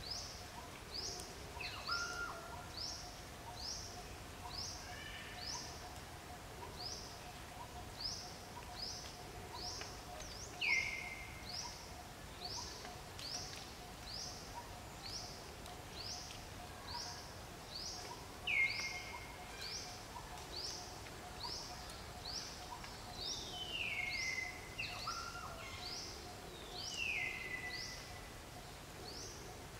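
Birdsong outdoors: a bird repeats a short, high, falling chirp about twice a second. A few times a lower, longer falling call comes in.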